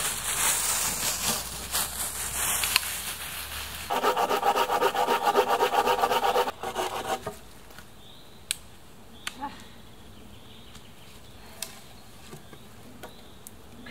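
Footsteps crunching through dry leaf litter and twigs, then a saw cutting through a dead log in quick, even rasping strokes for a couple of seconds, about four seconds in, followed by a few light clicks and snaps of wood.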